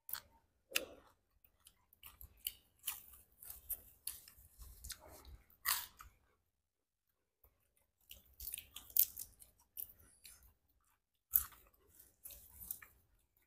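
Close-up chewing and crunching of food, including crisp lettuce leaves bitten from a platter of spicy boiled shrimp. The crunching comes in two spells separated by a pause of about two seconds near the middle.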